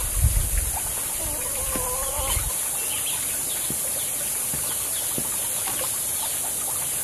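A chicken gives one wavering call of about a second, starting a little over a second in, over a steady high outdoor hiss. There are a few low thumps at the start and faint scattered knocks, fitting bamboo trellis poles being handled.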